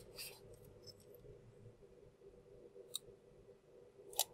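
Faint rustling and small clicks of fingers handling a mini RC car's plastic chassis and the ESC's wires. There is a soft click about three seconds in and a sharper, louder click near the end, over a faint steady hum.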